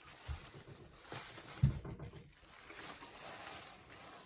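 Handling noise from unpacking a bookshelf speaker: faint rustling of its wrapping, with a soft knock near the start and a sharper knock about a second and a half in.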